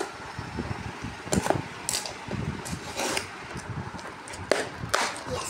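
A small cardboard parcel being torn open and handled, with about half a dozen short ripping and crinkling noises over low handling rumble.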